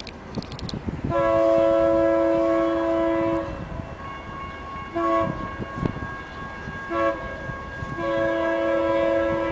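Multi-chime air horn of an approaching BNSF freight locomotive, a Dash 8-40BW in the lead, sounding one long blast, two short blasts, then another long blast that carries on past the end. A low rumble runs underneath.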